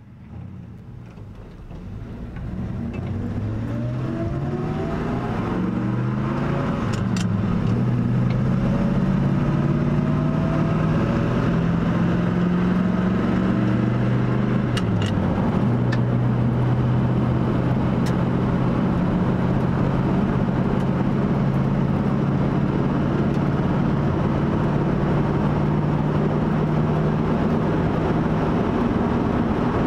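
1970 Ford F-250 Highboy pickup's engine heard from inside the cab, rising in pitch as the truck picks up speed, with a drop at a gear change about fifteen seconds in. It then runs steadily at cruising speed over a constant road noise.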